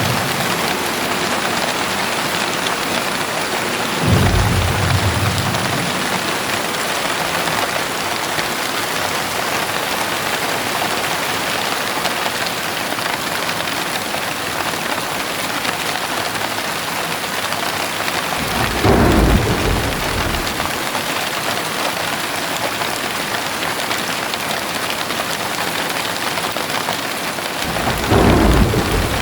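Steady heavy rain pattering on surfaces, with thunder rumbling three times: once about four seconds in, once past the middle, and once near the end.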